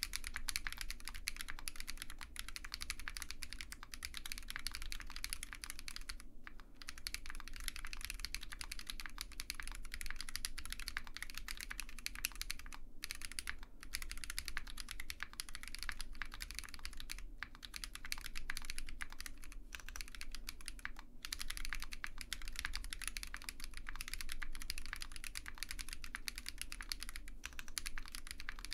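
Continuous typing on a custom OwLab Mr Suit mechanical keyboard with Zaku switches, GMK keycaps, a POM plate and no foam inside: a dense stream of muted key clacks, broken by a few brief pauses.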